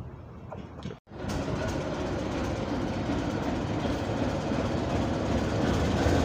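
ČSD class T478.1 "Bardotka" diesel-electric locomotive drawing slowly into a platform with a passenger train, its engine and running gear rumbling and growing steadily louder as it approaches. A sound break about a second in comes before it.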